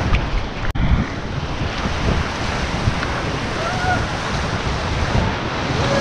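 Rushing whitewater of a river rapid churning around a rubber raft, mixed with wind buffeting the action-camera microphone; the sound drops out for an instant under a second in.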